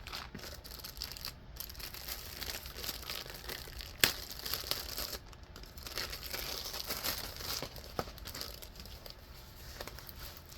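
Packaging of a diamond painting kit being handled and pulled open: continuous crinkling and tearing, with one sharp snap about four seconds in.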